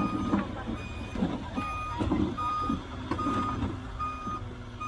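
Heavy construction vehicle's reversing alarm beeping steadily, about one beep a second, over a diesel engine running, with a few metallic knocks; the loudest comes at the very start.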